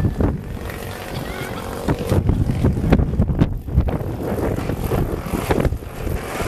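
Wind buffeting the microphone in irregular gusts, loud and rumbling, over the low running of a large RC Yak-54 model's engine as the plane rolls out on the runway after landing.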